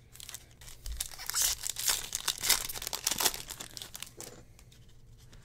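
Foil wrapper of a trading card pack being torn open and crinkled, a crackling rustle lasting about three seconds.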